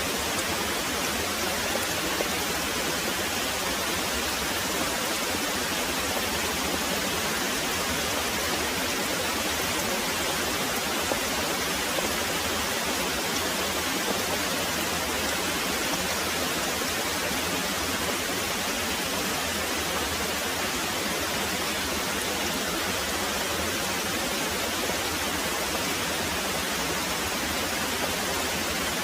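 Very heavy rain pouring steadily, an even, unbroken hiss with no thunder heard.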